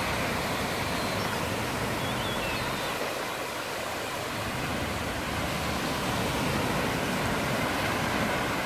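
Small waves breaking and washing up on a sandy lakeshore, a steady rush of surf with an uneven low rumble of wind on the microphone.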